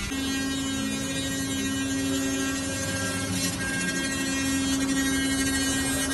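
Four-axis CNC router's spindle running with a steady hum as its cutter carves a block of white foam.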